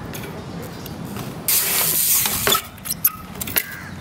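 Mechanical clicks and rattles from a BMX bike being handled, three sharp clicks in the second half, with a stretch of louder hiss starting about one and a half seconds in.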